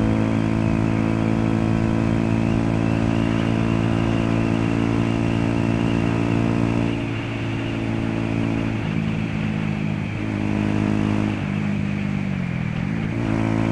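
Yamaha YZF-R125's single-cylinder four-stroke engine running on the road, holding a steady note for the first half. Then the pitch dips and climbs several times, falling and rising again near the end.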